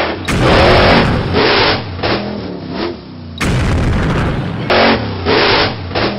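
Cartoon sound effects: a revving truck engine broken by three sudden explosion booms, one just after the start, one about three and a half seconds in and one near five seconds.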